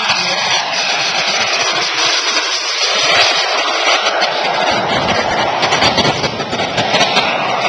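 Steady rushing jet noise from the engines of a large radio-controlled model four-engine jet transport as it flies low past.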